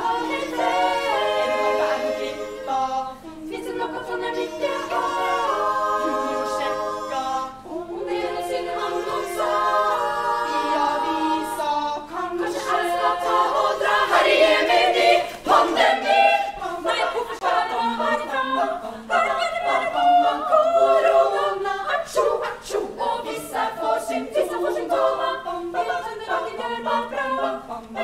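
Women's choir singing a cappella in close harmony: long held chords at first, then a faster, more rhythmic passage from about twelve seconds in.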